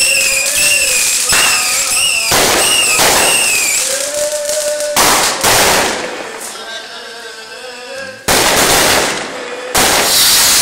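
Fireworks and firecrackers going off one after another with sharp bangs and crackling. Shrill, wavering whistles run through the first few seconds, and the loudest bursts come about five seconds in and near the end.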